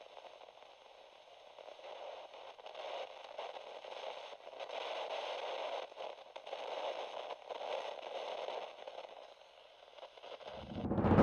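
Quiet crackle and hiss of an old-film soundtrack effect, thin and without any bass, swelling and then dipping. A low rising swell comes in just before the end.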